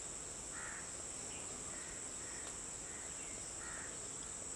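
Steady, high-pitched insect chorus droning in the trees, with a few faint short chirps scattered through it.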